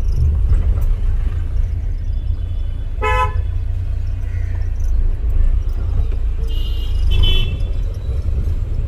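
Vehicle horns honking in traffic: a short toot about three seconds in, then two more close together a few seconds later, over the steady low rumble of a car driving.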